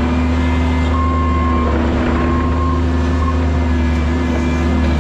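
Diesel engine of heavy construction equipment running at a steady speed. A high beep sounds three times about a second to three seconds in.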